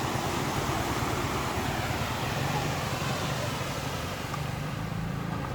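Ocean waves washing onto a beach: a steady rush of surf.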